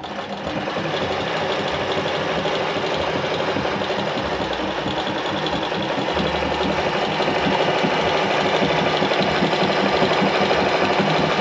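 Alfa Alfamatic 103-3 sewing machine starting up and running at a steady speed with rapid, even needle strokes. It is stitching a disc-cam decorative pattern.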